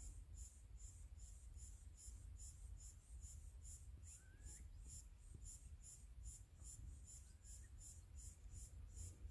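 Near silence. A faint insect chirps in a steady rhythm, about three high chirps a second, over low rumble, with a few short rising chirps.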